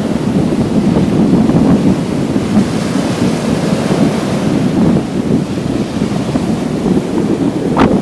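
Small sea waves breaking and washing up over the sand at the water's edge, a steady rushing surf, with wind buffeting the microphone.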